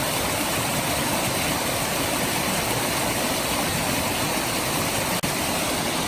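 Steady rush of river water and waterfalls, an even, unbroken noise, with a momentary dropout about five seconds in.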